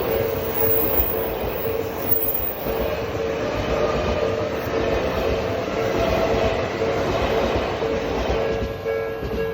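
Odakyu Line electric train running past a level crossing, a loud rumble and rail clatter with a steady tone held throughout, easing off near the end.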